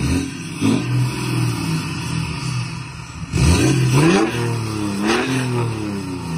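BMW M57 straight-six turbo-diesel in a 3 Series Touring, stationary and free-revved from idle: a short blip about a second in, then two harder revs that rise and fall back to idle, one about three seconds in and another near five seconds.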